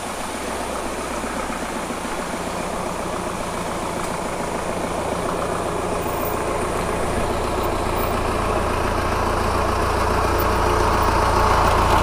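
Mahindra Thar's engine running at low speed as the 4x4 crawls closer over a rocky dirt track, growing steadily louder as it nears.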